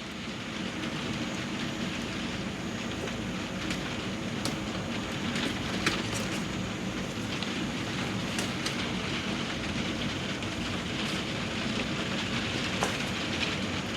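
Steady rain, an even hiss through the whole stretch, with a few faint clicks now and then.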